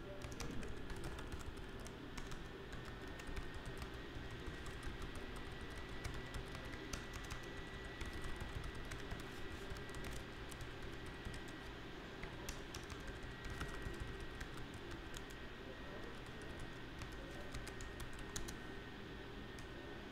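Typing on a computer keyboard: quick, irregular key clicks over a steady low background hum.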